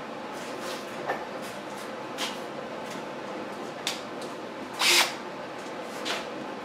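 Steady workshop background hum with a few light clicks and knocks of things being handled, and one louder short rustling hiss about five seconds in.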